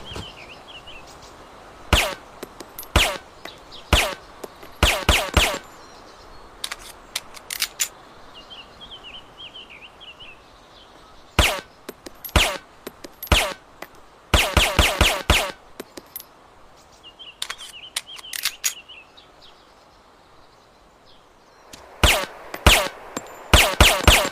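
Makarov PB integrally suppressed pistol firing: single shots a second or so apart, then quick strings of several shots, with a long pause before a last burst of shots near the end. Small birds chirp briefly in the gaps between shots.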